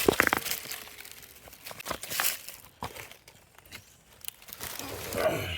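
Dry leaf litter crackling and rustling in irregular bursts, with a louder cluster of crunches about two seconds in.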